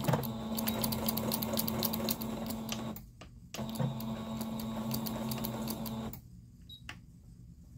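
Singer electric sewing machine stitching in two runs of about three and two and a half seconds with a short stop between, backstitching back and forth to lock the start of a seam. The motor hums steadily under a fast ticking of the needle, then stops about six seconds in, followed by a faint click.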